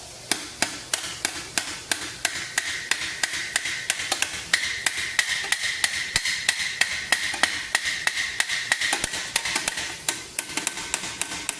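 Quick, light hammer blows on the steel of a great helm, about three to four a second, with the metal ringing through the middle of the run.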